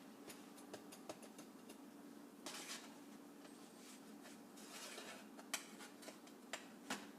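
Quiet scrapes and light clicks and taps of a utensil and hands working pancakes on a metal toaster-oven tray, over a low steady hum. There are short scrapes about two and a half and five seconds in, and a few sharp taps near the end.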